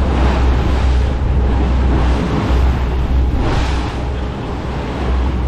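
Small tour boat under way: a steady low engine drone with the rush of its wake and wind buffeting the microphone, the rushing swelling near the start and again about three and a half seconds in.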